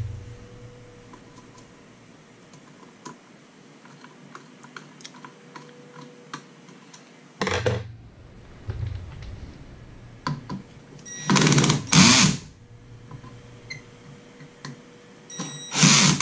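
Handling noise from hand-wiring an electronics project: faint scattered clicks and taps of small tools, wire and parts over a steady faint hum. This is broken by a few louder scraping bursts of about half a second each, around halfway through and again near the end.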